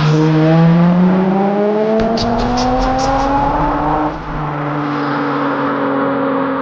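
Car engine accelerating, its pitch climbing smoothly for about four seconds and then holding steady; plausibly the Nissan 350Z's V6 through its Apexi single-exit exhaust.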